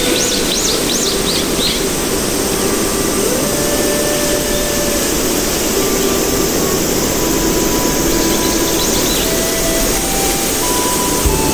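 Background soundtrack: a steady rushing noise under slow, scattered held notes, with a few quick high chirps in the first two seconds.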